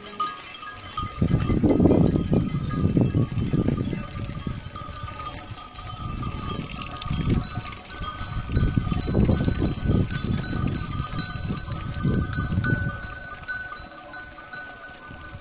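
Bells on a herd of walking cattle ringing steadily, mixed with loud, irregular low rumbling noise from about a second in until near the end.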